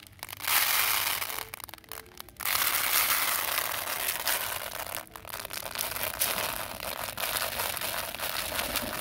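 Dry grain feed rattling and pouring into an orange plastic bowl, a continuous crackly hiss with a short break about two and a half seconds in.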